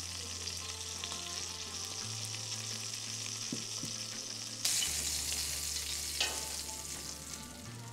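Thick steak sizzling in a hot cast iron pan, getting suddenly louder a little past halfway, with a brief knock about six seconds in. Low held notes of background music play underneath.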